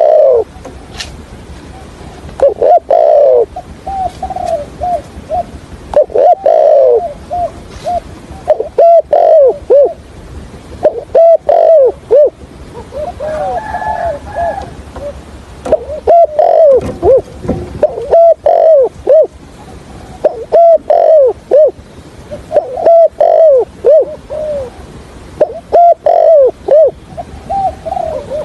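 Spotted dove cooing in a stuttering pattern ('gù cà lăm'): phrases of several quick, low coo notes, repeated every two to three seconds.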